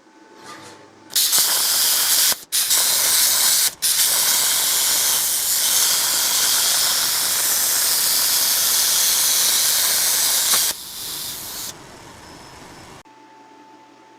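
Langmuir Crossfire CNC plasma cutter torch cutting: a loud steady hiss that starts about a second in, breaks off twice briefly in the first few seconds, and cuts off after about ten seconds, followed by a quieter hiss that fades out a couple of seconds later.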